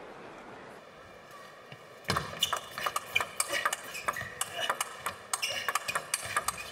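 Table tennis rally: the ball clicking sharply off the bats and the table in quick, irregular succession, starting about two seconds in.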